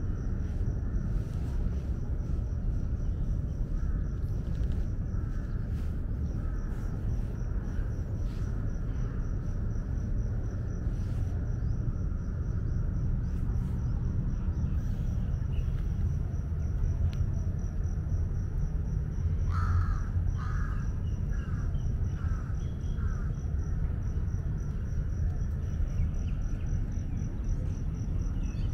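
Outdoor ambience: a steady low rumble with a continuous high, pulsing trill throughout. About twenty seconds in comes a quick series of about six short, harsh calls.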